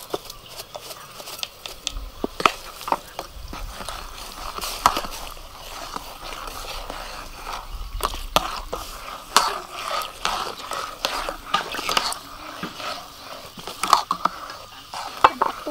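Metal ladle scraping and clinking against a metal wok while steaming liquid is stirred in it, with irregular sharp knocks throughout over a faint hiss.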